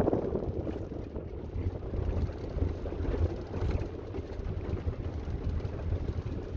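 Wind buffeting the microphone, a low, uneven rumble.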